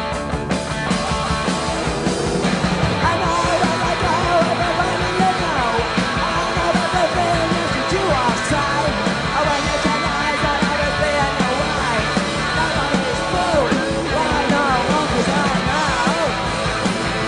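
A punk rock band playing live at full volume: distorted electric guitar, bass and drums, with a singer's voice over them.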